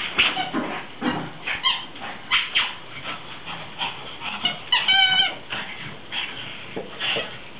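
Pug playing with its fabric dog bed: quick, irregular snuffling and rustling, with one short high squeak about five seconds in.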